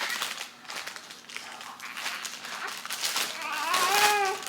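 Newborn baby boy crying: one wavering wail about three seconds in, lasting about a second. He is fussing over a dirty diaper, as his mother puts it.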